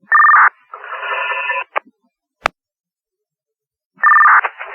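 Two-way radio traffic: a half-second data burst of two steady tones as a radio keys up, then about a second of garbled radio signal ending in a click. A sharp click follows, then a gap, and near the end the same two-tone data burst as the next transmission opens.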